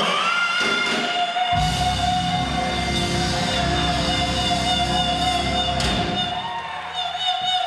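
Live gospel band playing, with long held notes over it. Bass and drums come in about a second and a half in and drop out near the end.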